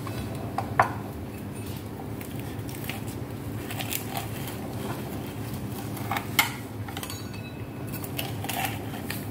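Metal wheel pizza cutter rolling through crisp stuffed parathas on a wooden board, with scattered clicks and knocks of the cutter against the board, the sharpest about a second in and about six seconds in.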